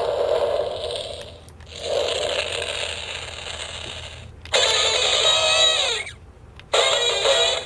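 Electronic sound effects from a Power Rangers morpher toy's small speaker, triggered by the T-Rex Champion Zord key. First come two long rushing blasts that fade away, then two short bursts of bright, tinny effects with falling tones.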